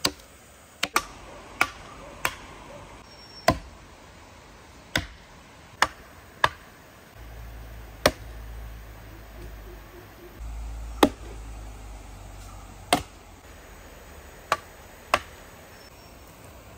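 Axe blows chopping into a teak root stump: about fourteen sharp, uneven strikes roughly a second apart, some much louder than others.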